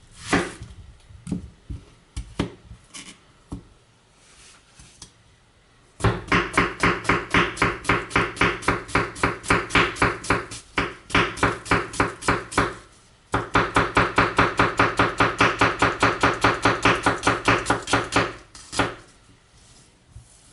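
Masakage Koishi bunka kitchen knife, Aogami Super steel, chopping an onion against a cutting board. A few scattered cuts come first, then two fast, even runs of about five strokes a second with a short break between them, and one last knock near the end.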